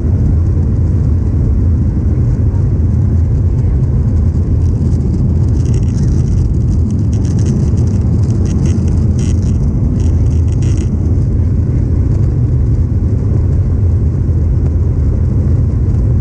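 Steady low rumble of a Boeing 737-800's cabin noise, engines and airflow, even in level throughout. Near the middle comes a stretch of faint high rattling lasting several seconds.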